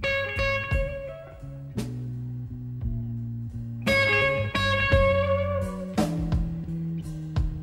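Electric blues band playing an instrumental passage: electric guitar holding ringing notes over bass guitar and drums, with sharp drum hits. The playing gets fuller and louder about halfway through.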